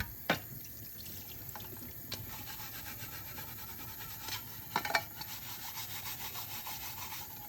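Steel-wool soap pad scrubbing an aluminium mess tin in rapid repeated strokes, scouring off smoking residue. A couple of sharp knocks come right at the start and about five seconds in.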